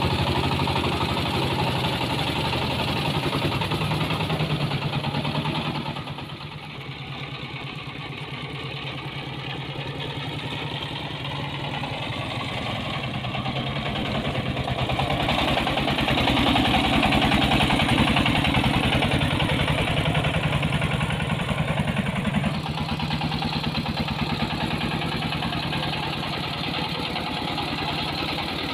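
Small diesel engine of a homemade mini dump truck running steadily as the truck drives, with a fast, even chugging. It drops quieter about six seconds in, builds louder again through the middle, and steps down suddenly near the end.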